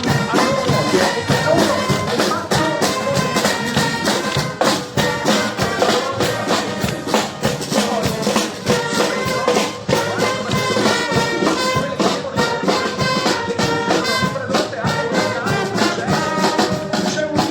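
Upbeat music with brass instruments over a steady, busy percussion beat.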